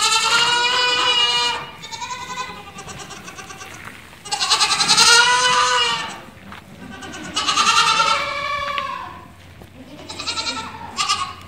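Saanen dairy goats bleating: three loud, long bleats a few seconds apart, with fainter bleats from other goats in between and near the end.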